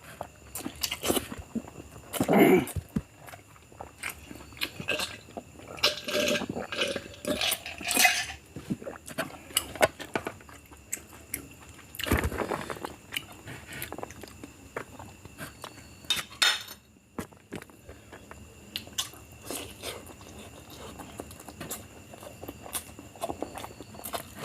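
A person eating biryani close to the microphone: chewing, crunching and wet mouth sounds, with scattered sharp clicks throughout and a few louder bites.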